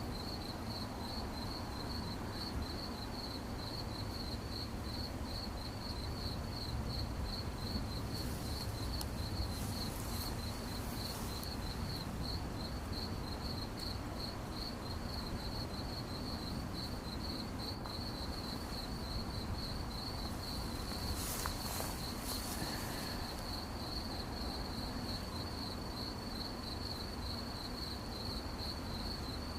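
A cricket chirping in a steady, even, high-pitched pulse that never lets up, over a low background rumble. Brief soft hisses come about a third of the way in and again about two-thirds in.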